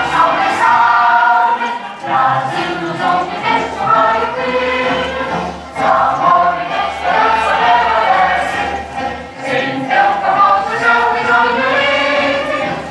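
A choir of many voices singing a song together, with music behind them.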